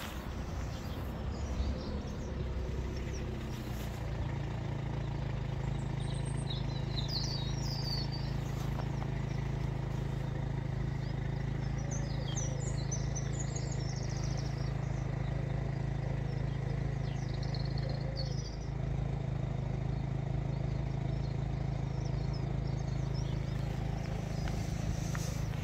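A steady low mechanical hum, like an engine running, that swells about four seconds in and then holds. Small birds chirp now and then above it.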